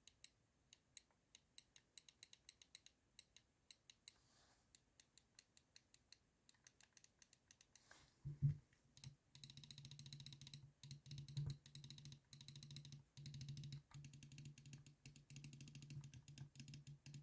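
Faint clicking of a gaming mouse's micro-switch buttons. For the first half the clicks come singly, a few a second. After a thump about eight seconds in, they come in long, fast runs.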